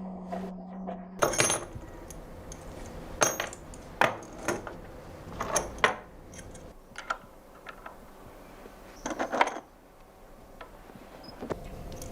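Steel scissor parts clinking against metal in an irregular series of sharp, ringing strikes a second or two apart. A low steady hum cuts off about a second in.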